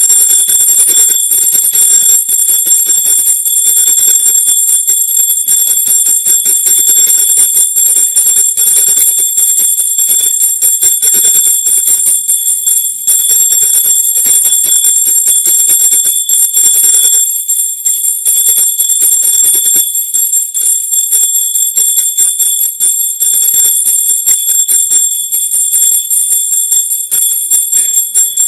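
A brass puja hand bell rung rapidly and without pause during household worship, its high ringing tones sustained throughout. The ringing thins a little after about seventeen seconds.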